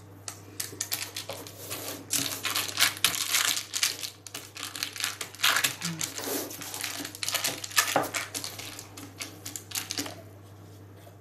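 Baking paper lining a springform pan crinkling and rustling while hands press crumbly chocolate dough into the base and up the sides: a dense run of small crackles that dies down near the end.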